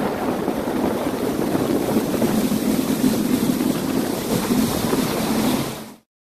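Personal watercraft running and slowing down, its engine mixed with water rushing past the hull and wind buffeting the microphone; the sound cuts off abruptly near the end.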